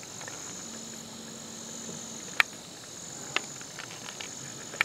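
Steady high-pitched chirring of crickets and other insects, broken by three sharp clicks about a second apart in the second half. A faint low steady hum comes in about a second in and lasts a second and a half.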